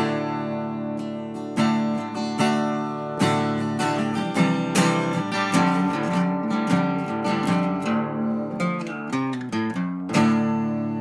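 Background music led by a strummed and picked acoustic guitar, ending on a strong strum about ten seconds in that rings out.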